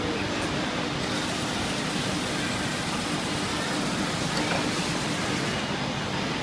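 Steady running noise of an MSS Soliwood-2 automatic sanding machine for wooden table legs, its motors, sanding heads and conveyor belt going at an even level.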